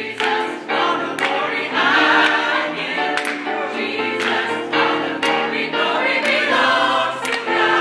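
Gospel choir singing in harmony with grand piano accompaniment.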